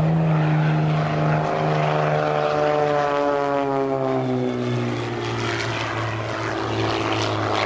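Extra 300 aerobatic monoplane's propeller and six-cylinder Lycoming engine droning steadily as it passes, the pitch falling slightly as it goes by.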